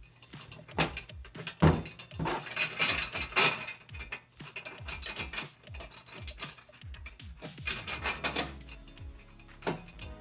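Stainless steel chainsaw-mill parts and bolts being handled during assembly: irregular metallic clicks, clinks and knocks in clusters.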